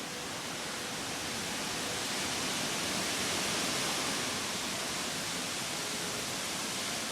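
Strong storm wind rushing steadily, swelling in a gust around the middle and then easing a little.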